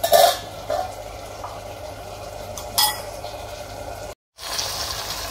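Stainless-steel lid set down on a steel kadhai of frying green tomatoes: a loud metal clatter as it lands, a smaller knock, then a short ringing clink about three seconds in, over a light sizzle. After a brief dropout, a steadier hissing sizzle comes from the covered pan.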